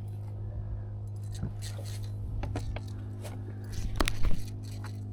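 Steady low motor hum under scattered clicks and knocks of a fishing rod and reel being worked against a hooked fish, with a short louder burst about four seconds in.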